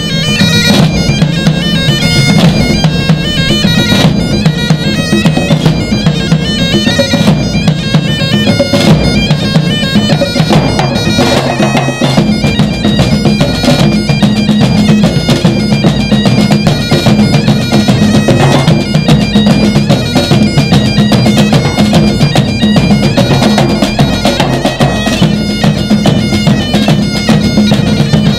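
Great Highland bagpipes playing a melody over their steady drones, with a band of drums beating under it: rope-tensioned bass drums, congas and a snare drum.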